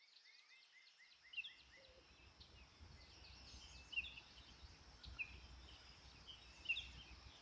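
Faint forest ambience fading in: several birds chirping and calling, including a quick run of repeated falling chirps near the start, over a steady low rumble.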